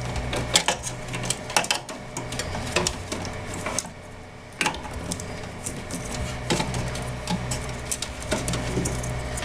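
Power-supply cables and their plastic connectors being handled and pushed into the cable harness inside a desktop computer case: irregular clicks, knocks and rattles of plastic against the metal chassis.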